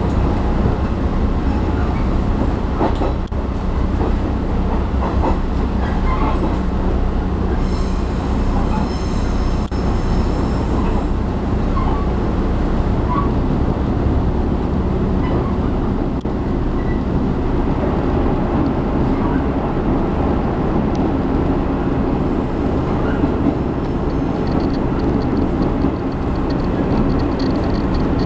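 Steady rumble of a diesel railcar running along the track, heard from inside the carriage, with a few rail clicks. A brief high squeal comes from about eight to eleven seconds in.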